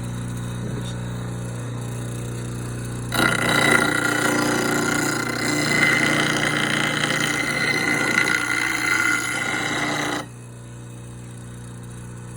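Bench grinder motor humming steadily. About three seconds in, a tool is pressed against the spinning grinding wheel and a loud hissing grind runs for about seven seconds, then it is lifted off and the motor hums on alone.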